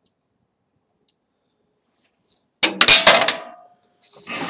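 Loud clatter of metal parts about two and a half seconds in, lasting about a second with a short ringing tail, then a quieter rattle near the end.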